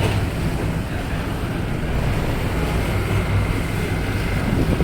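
Passenger ferry's engines running, a steady low rumble under a hiss of wind and water.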